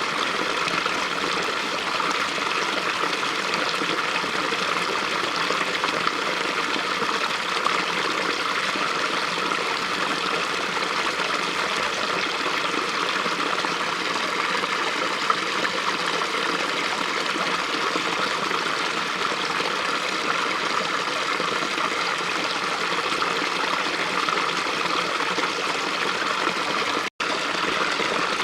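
A small brook flowing steadily, a continuous rush of splashing water, broken by a momentary dropout about a second before the end.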